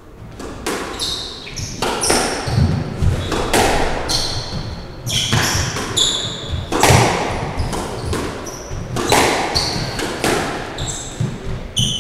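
Squash rally: the ball smacks off rackets and the walls again and again, every second or so, echoing in the enclosed court. Trainers squeak in short high chirps on the wooden floor as the players move.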